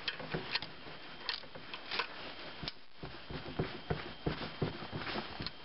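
Pry tool levering against a sheet-metal screw driven into a crankshaft oil seal, giving irregular small metal clicks and scrapes as the tight seal is worked loose from its bore.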